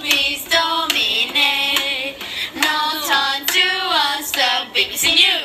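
Children singing a short tune in high, gliding notes, with sharp hand claps among the phrases.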